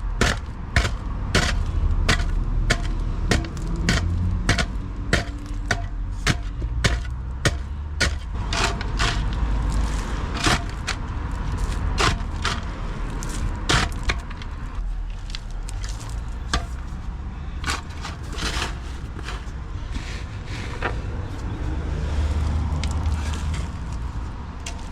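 A digging tool striking into the ground again and again, sharp chopping hits about one or two a second at an uneven pace, while a hole is dug out for a drain gully.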